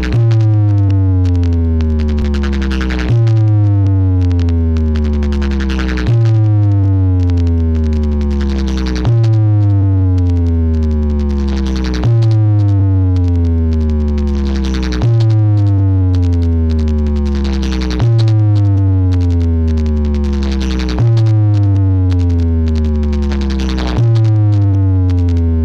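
Electronic DJ music: a heavy synthesized bass tone under a falling, gliding synth sweep, the same pattern restarting about every three seconds.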